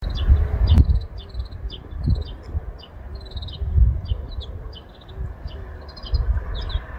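Small birds chirping over and over in short, high notes, with bursts of low rumble such as wind on the microphone.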